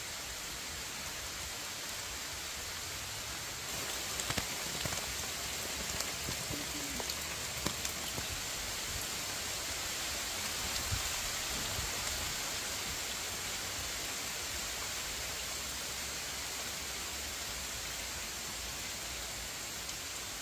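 Steady outdoor hiss with a few light clicks and taps between about four and twelve seconds in.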